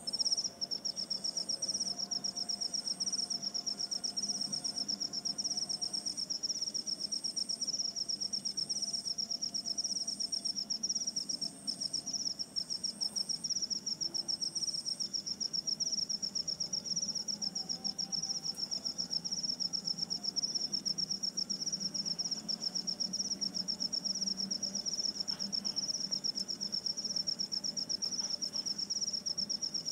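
A continuous high insect trill, rapidly pulsing, starting abruptly. A second, higher insect chirp repeats about once a second over it until about halfway through.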